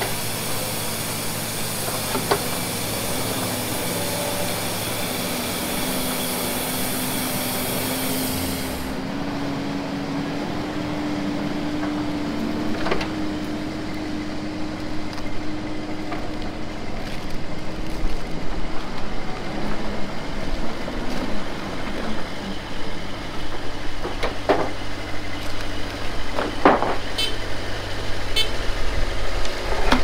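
Diesel engine of a Kubota tracked skid steer running, under a hiss that cuts off suddenly about nine seconds in. Its pitch rises slowly, then it runs louder and more unevenly, with a few knocks near the end.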